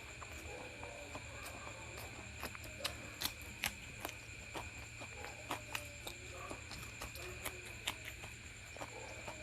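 Close-miked eating sounds of luchi and egg masala: irregular wet mouth clicks, lip smacks and chewing. A steady high-pitched whine runs underneath.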